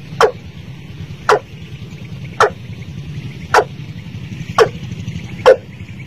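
Watercock calling: a short, sharp note that drops steeply in pitch, repeated six times about once a second, over a steady low hum.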